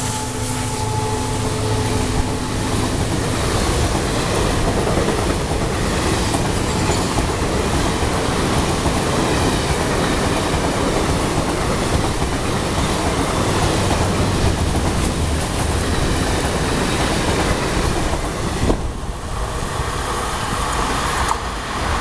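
Express train passing at speed on a station through line: a steady rush of coach wheels clattering over rail joints. The diesel locomotive's horn trails off in the first few seconds, and the din drops suddenly about 19 seconds in as the last coach goes by.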